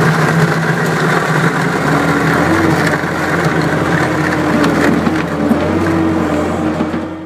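Engine of a snow-plowing vehicle running steadily under load as its blade pushes snow, its note stepping up slightly about two and a half seconds in.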